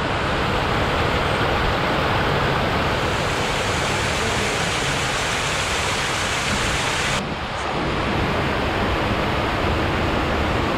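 Paddlewheel aerator churning pond water: a steady, loud rush of splashing and spray from the paddles beating the surface. About seven seconds in the sound turns duller, losing some of its hiss.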